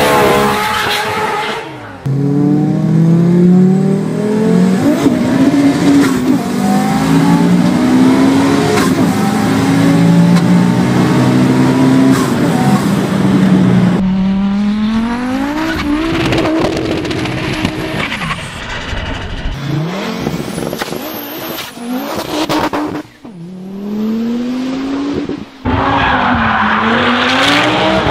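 Turbocharged Audi quattro engines revving hard, the engine note climbing and falling again and again as the cars accelerate and shift, with abrupt cuts between cars. Near the end an Audi Quattro rally car revs while spinning, with tyre squeal.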